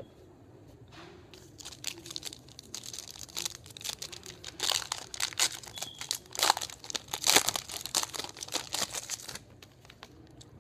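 Foil trading-card pack wrapper crinkling and tearing as it is opened by hand, starting about two seconds in, loudest in the middle, and stopping shortly before the end.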